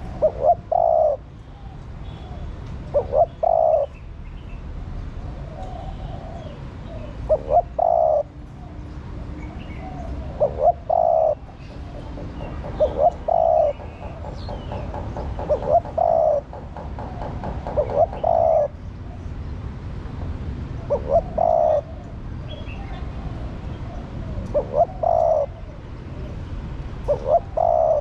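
Spotted dove (a hen, by the title) cooing in a repeated phrase: a couple of quick short notes, then a longer coo, about ten times, every two to three seconds.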